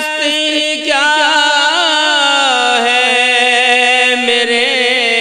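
A male naat reciter singing one long held note with wavering ornaments, its pitch sinking slightly about halfway through.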